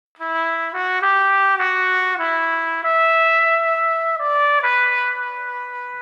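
Music: a slow solo instrumental melody, a run of short notes followed by one long held note that fades near the end.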